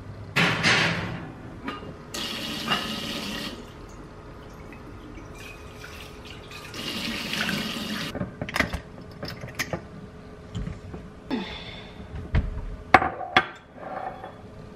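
Kitchen faucet running into a stainless-steel sink in two short spells, after a clatter at the oven door near the start. Then come sharp clinks and knocks of glass as a glass jar of rice and a glass measuring cup are handled.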